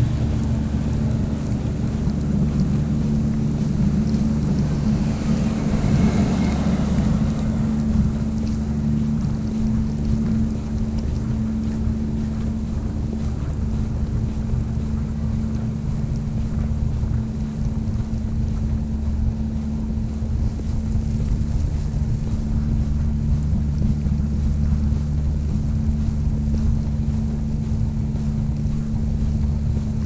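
Steady low rumble under a hiss of snowstorm wind, swelling briefly about six seconds in.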